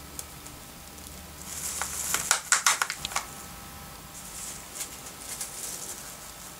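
Thin plastic film crinkling as it is handled and stretched over a seed cup, a loud run of crackles about two and a half seconds in, then softer crinkling.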